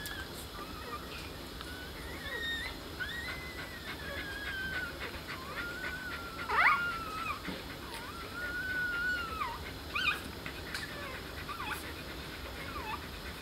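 A litter of five-day-old Kooikerhondje puppies squeaking and whimpering while nursing. Their thin, high calls slide up and down in pitch and overlap almost without a break, with one louder rising squeal about halfway through and a shorter sharp one about ten seconds in.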